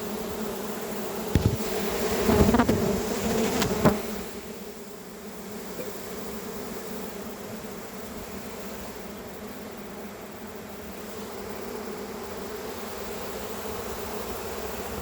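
Swarm of around 100,000 honey bees buzzing at the hive, a steady dense hum. A few short knocks come in the first four seconds.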